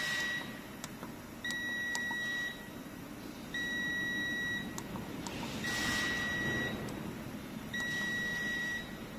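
High electronic beeper on the CNC wood lathe's controller, sounding a steady tone for about a second at a time, roughly every two seconds, over a low background hum.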